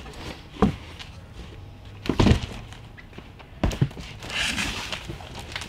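Heavy cardboard shipping boxes being moved and set down: three dull thumps, the loudest about two seconds in, then cardboard sliding with a rustling scrape near the end.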